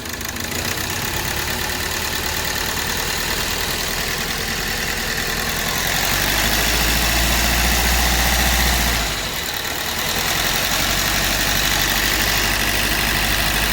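Hyundai Verna Fluidic four-cylinder engine idling roughly with heavy knocking, misfiring on cylinder 3. It runs a little louder and deeper for a few seconds about six seconds in, then dips briefly. The cylinder 3 injector is getting too little supply, a fault the mechanic traces to the ECM.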